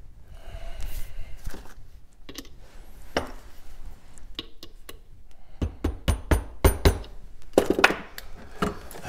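Hand tools and small metal parts clinking and clattering on a wooden workbench, with a quick run of heavier knocks from a little past halfway to near the end.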